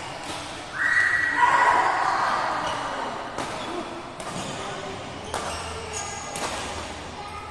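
Badminton rackets striking the shuttlecock in a sports hall, sharp hits roughly once a second. About a second in comes a loud, high, steady squeal lasting a second or so.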